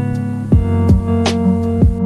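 Background music: sustained chords over a steady electronic beat of deep kick drums.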